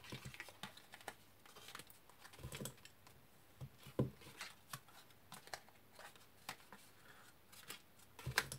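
Cardstock being folded along its score lines and creased with a bone folder: scattered crisp rustles, scrapes and light taps of card, with a sharper tap about four seconds in and another near the end.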